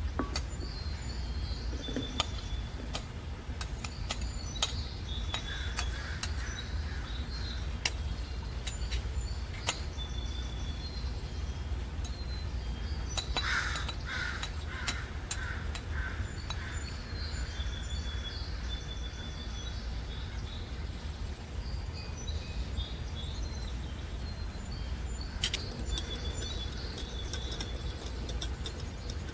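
Birds calling outdoors: short high chirps repeat throughout, and a run of about five harsh caws comes about halfway through. A steady low rumble runs underneath, with scattered sharp clicks.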